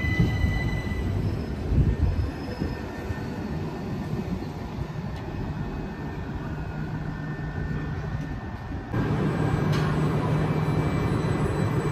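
Southeastern electric multiple-unit train at the platform: a steady electric hum over a low rumble, stepping up louder about nine seconds in.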